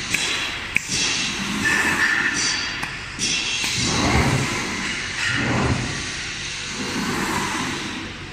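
CNC glass cutting machine at work: irregular mechanical noise with several low thuds and two sharp clicks in the first second.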